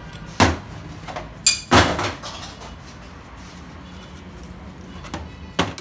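A few sharp knocks and clinks, as of metal parts and tools being handled on a workbench: one about half a second in, two close together around a second and a half, and one near the end, each with a short ring, over a low steady hum.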